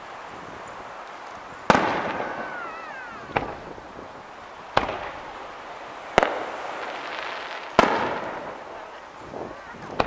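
Aerial fireworks shells bursting: six sharp bangs about every one and a half seconds, one of them softer, each trailing off in echoes. A brief whistling glide follows the first bang.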